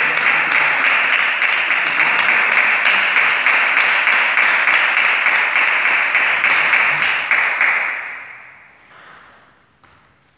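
Spectators clapping after a point ends, a dense run of many hand claps that dies away about eight seconds in.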